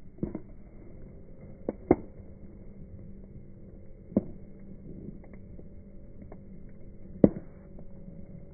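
Wood bonfire burning with a low steady rush of flame, broken by a handful of sharp crackling pops. The loudest pops come about two seconds in and near the end.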